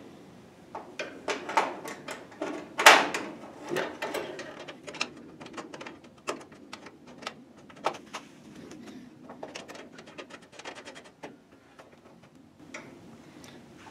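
Hands handling aluminum A/C refrigerant tubes and their plastic end caps at a car's condenser: irregular clicks, knocks and light rattles, the loudest about three seconds in, with a quick run of fine ticks near the ten-second mark.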